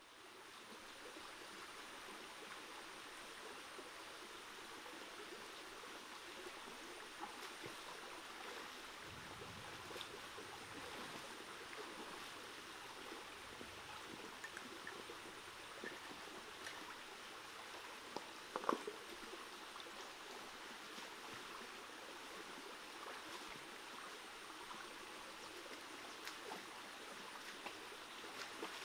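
Shallow stream running over rocks, a steady soft rush of water that fades in over the first couple of seconds. Scattered small clicks lie over it, and one sharper knock comes about two-thirds of the way through.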